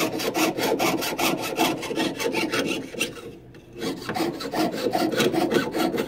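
Jeweler's saw cutting sheet metal by hand, a rasping back-and-forth stroke repeated about five times a second, with a brief pause about halfway through before the strokes resume.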